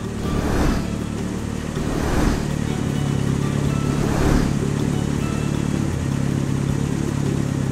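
Animated car engine sound effect, a steady motor hum as the toy cars drive down the spiral ramp, with three short whooshes in the first half.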